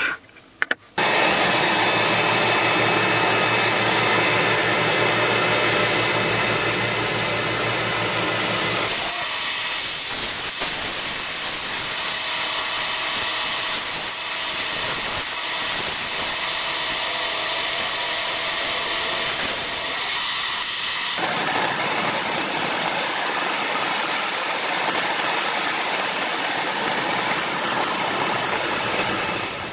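Small benchtop wood lathe running, with abrasive paper held against the spinning mahogany handle: a steady motor hum under the hiss of sanding. The sound drops out briefly just after the start, changes about nine seconds in, and turns to a broader hiss about twenty-one seconds in.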